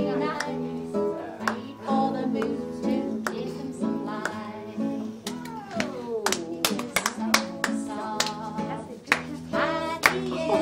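Acoustic guitar strumming with singing. About six seconds in, the voice slides down in pitch.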